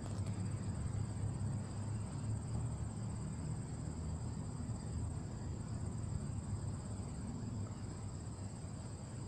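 Insects trilling steadily at a high, even pitch, over a constant low rumble.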